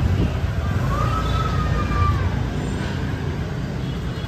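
Busy street traffic: a steady rumble of passing vehicles. A single high tone, about a second long, starts about a second in.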